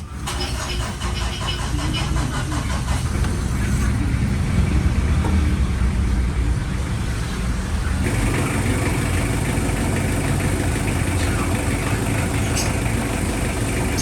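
Car engine running steadily at idle, with a steady hiss joining about eight seconds in.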